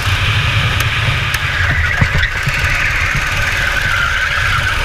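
Go-kart engine running at high revs, heard from on board the kart over a heavy low rumble. Its note drops toward the end as the kart slows into a corner.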